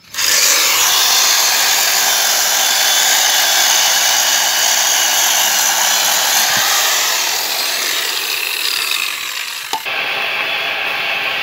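Corded electric chainsaw running flat out with its chain cutting through a log, a dense, steady whine and rasp that starts suddenly. Near the end the sound changes abruptly and runs on a little thinner.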